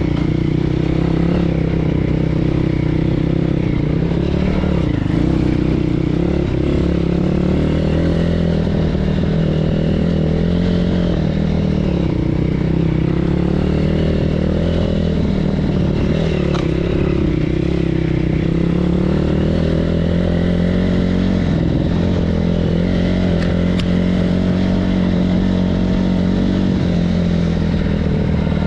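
BSE PH 150 pit bike's 150 cc engine running under way on a ride, its pitch rising and falling as the throttle is opened and eased off, with a few light knocks over it.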